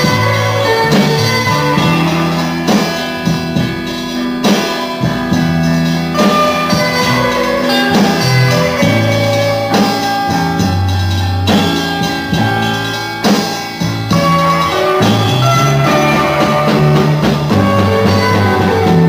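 Instrumental introduction of a 1964 pop ballad recording by a small band: guitar, drums and a stepping bass line playing steadily, with no singing yet.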